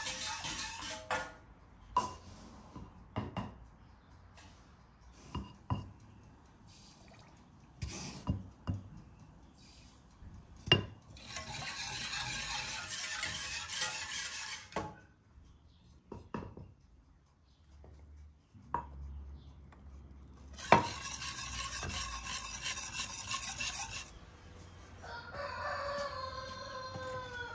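Wire whisk beating a liquid mixture in a stainless steel saucepan: two long bouts of steady scraping strokes, with scattered clinks of the whisk against the pan between them. A rooster crows near the end.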